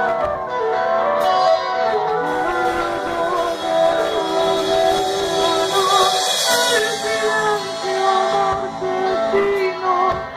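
Live band performance: a woman singing in Spanish over electric guitar, with a wooden flute playing in the first part.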